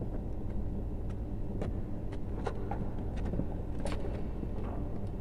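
Scattered light clicks and taps of plastic wall sockets and electrical cable being handled, over a steady low hum.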